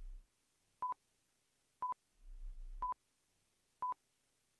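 Countdown timer sound effect: short electronic beeps at one steady pitch, one a second, four in all.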